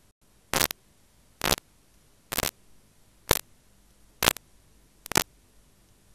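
Short bursts of static hiss from a videotape where one recording ends and the next begins, six of them about a second apart, with near silence between.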